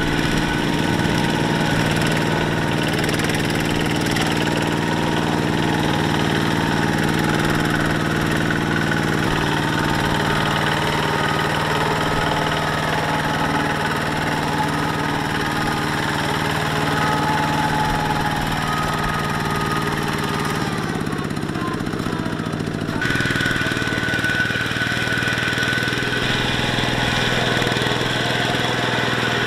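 Single-cylinder diesel engines of two-wheel walking tractors running steadily under load while hauling trailers of rice sacks through mud. The engine note changes abruptly about three-quarters of the way through, as a different tractor takes over.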